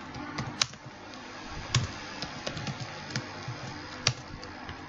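Slow, irregular keystrokes on a computer keyboard as code is typed: scattered sharp clicks, a few of them louder, over a faint steady background.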